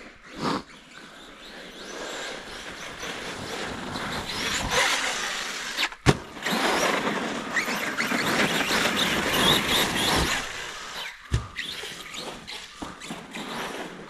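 Kraton XL radio-controlled truck's electric motor running as its tyres churn through wet snow and slush. The sound builds over a few seconds, stays loud for about six seconds, then fades. There are sharp knocks near the start, about six seconds in, and about eleven seconds in.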